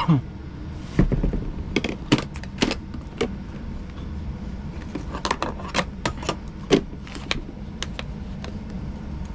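Scattered short clicks and knocks, like objects being handled and set down, over a steady low hum.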